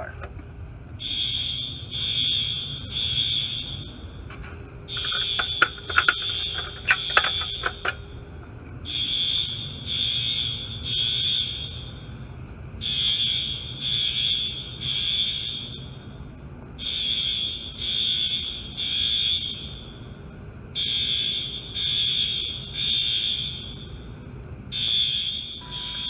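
Wheelock AS fire alarm horns sounding the temporal-three evacuation code: three high beeps, a pause of about a second and a half, repeating. The alarm was set off by pulling a manual pull station.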